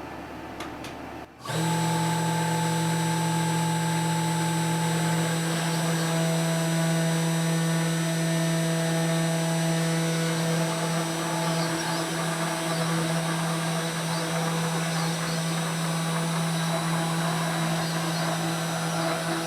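Desktop CNC router spindle that comes in suddenly just over a second in and then runs at a steady speed, a steady hum with a whine above it, while it reruns a cutout pass with a straight cutter in a wooden board.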